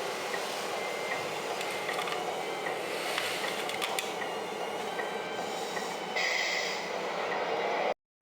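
Steady mechanical running noise with faint ticking. A louder hissing layer comes in about six seconds in, and the sound cuts out abruptly just before the end.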